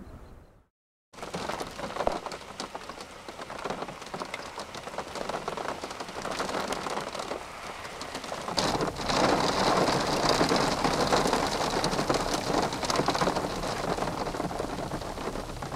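Heavy rain driven by gusty thunderstorm wind, rattling against a car and blowing in through its open window in a tornado's rear-flank downdraft. The sound drops out completely for a moment about a second in, then grows louder about eight and a half seconds in.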